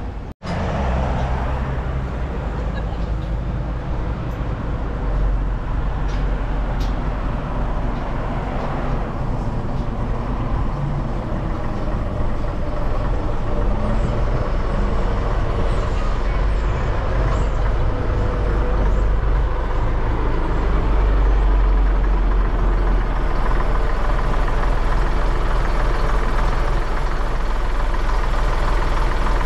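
Bus engine running steadily, getting a little louder in the second half.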